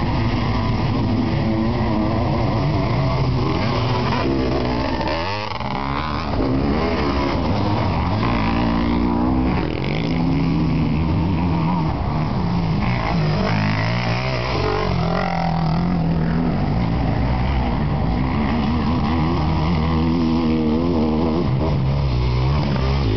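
Racing sidecar engine running hard, its pitch climbing and dropping again and again as it revs up and backs off.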